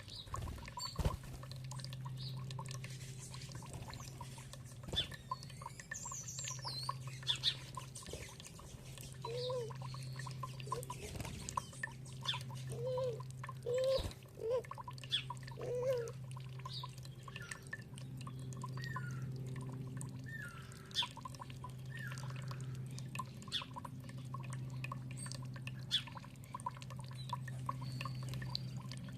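Small birds chirping and calling over pouring, dripping water, with a short run of low calls about a third of the way in.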